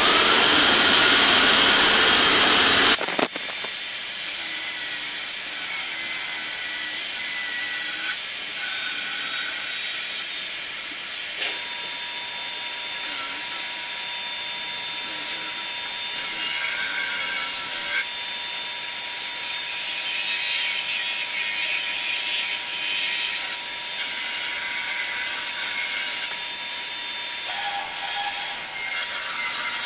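Shop vacuum running for about three seconds and cutting off, then a hand-held power tool with a dust-extraction hose running steadily as it cuts and shapes wood along the scribe line of a wooden mantle base, with a high whine that wavers as it works.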